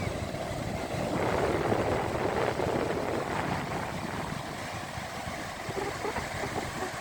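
Strong wind buffeting the microphone, over the steady wash of ocean surf.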